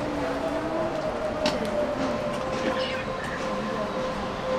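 Train running on the rail line, a steady whine over a low rumble, with faint voices in the background.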